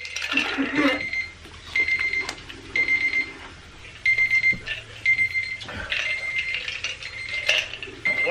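An electronic alarm or timer beeping: short, high, identical beeps repeating about once a second.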